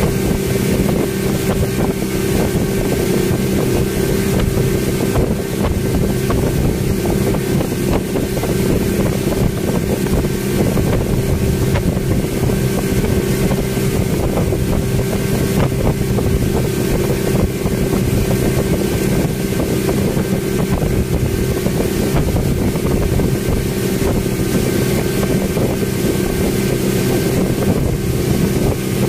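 Passenger speedboat engine running steadily at cruising speed, heard from inside the covered cabin, with wind rushing past the microphone.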